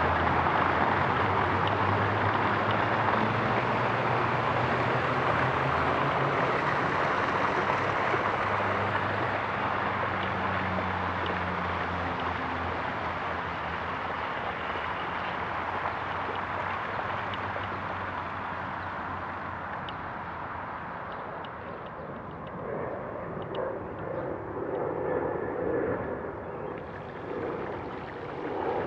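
Steady rushing noise of riding through shallow flood water, with wind on the microphone. It fades slowly over the first twenty seconds, a low hum sits under it for about the first ten seconds, and uneven gusts swell in the last few seconds.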